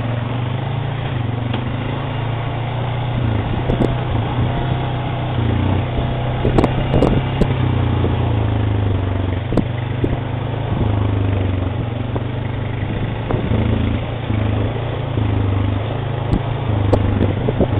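ATV engine running at low speed, its pitch rising and falling a little with the throttle, with scattered knocks and rattles as it rides over a rutted dirt trail.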